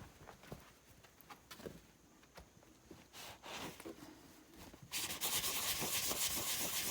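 Light clicks and handling of metal compressor parts, then about five seconds in a loud, fast scrubbing starts: a rag rubbing hard over the air compressor pump's piston and cylinder to wipe it clean.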